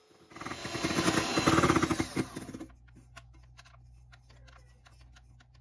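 Vitek electric hand mixer whipping egg whites in a stainless steel bowl, loud, with the beaters rattling fast against the bowl, for about two and a half seconds. It then drops to a low hum with faint scattered clicks.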